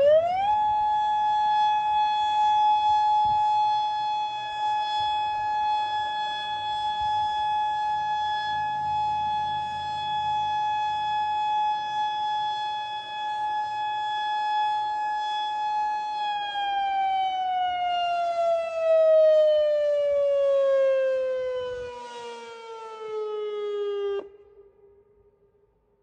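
Whelen WPS-2810 electronic outdoor warning siren sounding its loud test tone. It holds a steady high tone, then about sixteen seconds in glides down in pitch for about eight seconds and cuts off abruptly.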